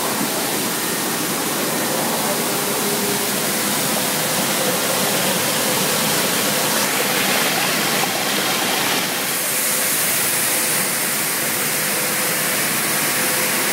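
Plastic recycling pelletizing line with a water-cutting system running: a steady machinery din of motors and rushing water, with a steady hum throughout. The hiss grows louder for a few seconds from about seven seconds in.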